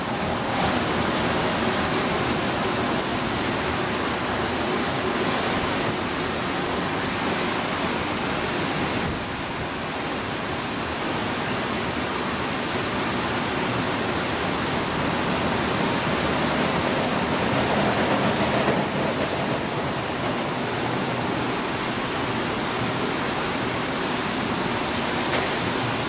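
Changsung continuous tumble dryer line running: a steady rushing noise with a faint hum underneath.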